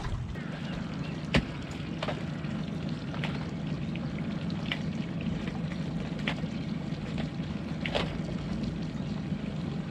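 Wet crab-pot rope being hauled in hand over hand, with water trickling and dripping off the line in a crackling hiss over a steady low rumble. A few sharp knocks come through it, the loudest about a second and a half in.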